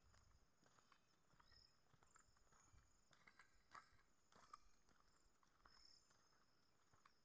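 Near silence: faint outdoor ambience with soft scattered clicks and faint high chirps.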